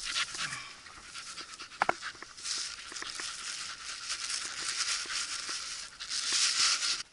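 Footsteps and rustling through tall dry grass, swelling near the end, with a single sharp click about two seconds in.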